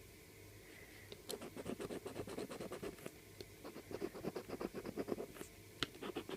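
Scratchcard being scratched: rapid, short scraping strokes that start about a second in, as the coating is rubbed off the card to reveal letters.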